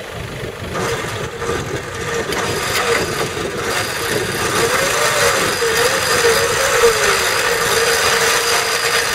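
Off-road Toyota Hilux pickup's engine running at idle with a steady hum, the mechanical noise growing louder over the first few seconds.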